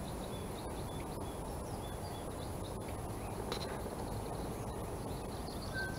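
Quiet outdoor ambience: a steady low background hiss with faint, short high-pitched chirps from small wild animals repeating throughout, and one light click about three and a half seconds in.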